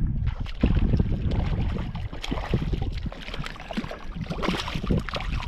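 Water splashing and lapping around a kayak, with many small crackling ticks and knocks, and wind buffeting the microphone with a low rumble during the first two seconds.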